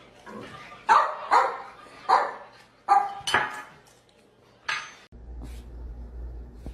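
A dog barking: about six sharp barks, some in quick pairs, over roughly four seconds.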